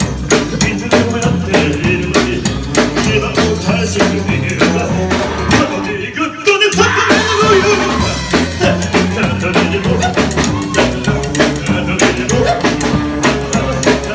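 Rockabilly band playing live, with upright bass and drums driving a steady beat. There is a short break in the music about six seconds in.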